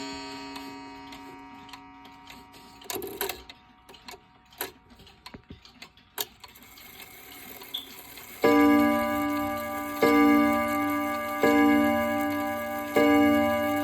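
Freshly overhauled Odo 30 time-and-strike wall clock: a ringing note dies away while the movement ticks. About eight and a half seconds in, the strike starts sounding, four ringing blows about a second and a half apart.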